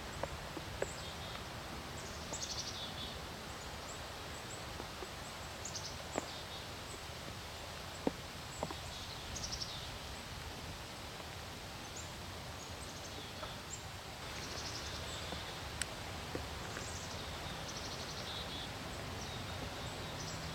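Quiet woodland background with songbirds singing now and then, a short high trill every few seconds, over a steady low hiss and a few faint clicks.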